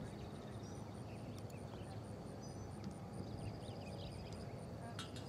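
Open-air ambience: a steady low rumble with faint high chirps and a thin, pulsing high trill over it.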